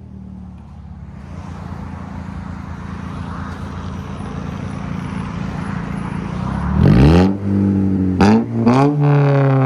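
2006 Pontiac Solstice's 2.4-litre inline-four running through a straight-piped exhaust with the muffler deleted: a steady idle that slowly grows louder, then a sharp rev about seven seconds in and two quick blips near the end, the last one held briefly. Insanely loud.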